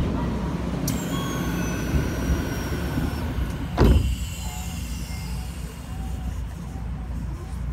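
Odakyu commuter train's sliding passenger doors closing. The door mechanism starts up suddenly about a second in with a falling whine, and the doors shut with a loud thump nearly four seconds in. A steady low rumble from the train runs underneath.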